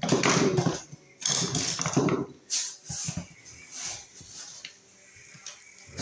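Rustling and light knocks of tools being handled and someone shifting about on a plywood floor. The handling is loudest in the first two seconds, then thins to scattered small clicks.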